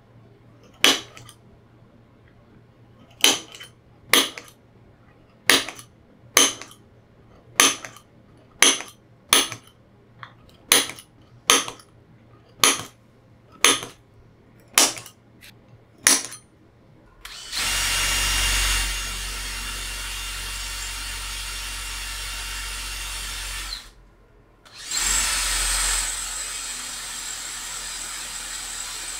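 About fourteen sharp clicks, roughly one a second, as hole centres are punched into aluminium brackets. Then a handheld power drill runs, drilling the aluminium, stops briefly about six seconds later and starts again.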